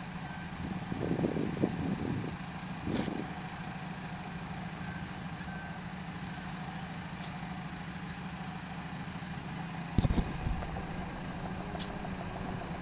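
Heavy diesel engine idling steadily with a low, even hum, with a few brief low bumps near the start and again about ten seconds in.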